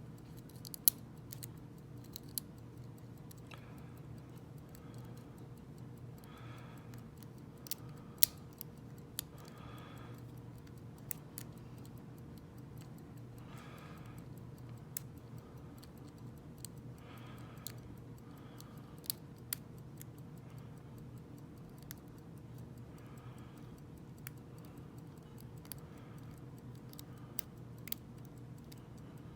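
Lock pick and tension wrench working the pin stack of a small brass padlock: scattered sharp metallic clicks and ticks, the loudest about a second in and about eight seconds in, with a few brief faint scrapes of the pick against the pins. A steady low hum runs underneath.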